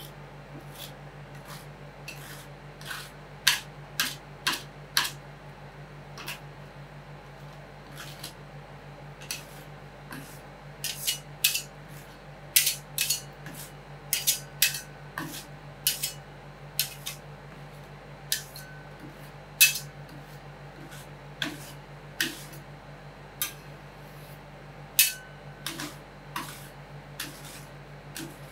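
Metal spatulas striking and chopping on a rolled-ice-cream cold plate: irregular sharp clacks, sometimes several in quick succession, over a steady low hum.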